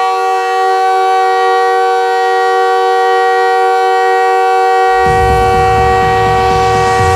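NHL arena goal horn blasting one long, steady, chord-like note. Music begins underneath it about five seconds in.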